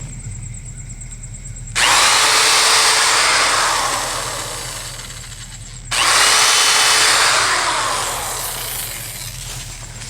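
Power drill boring pilot holes into a wooden board: two drilling runs, each starting abruptly and tailing off over a few seconds.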